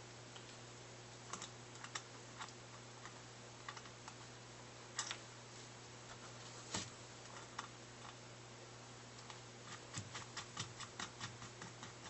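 Small metal parts clicking and ticking as nuts and washers are handled and threaded onto steel mounting bolts, in scattered light clicks that come quicker near the end, over a steady low hum.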